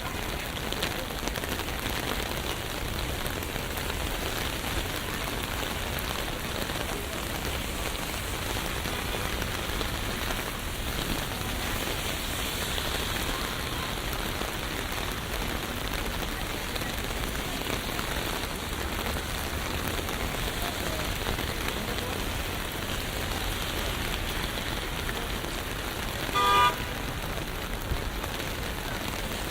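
Steady rain falling on a city street, heard as an even hiss. Near the end comes one short, loud tonal beep, like a car horn.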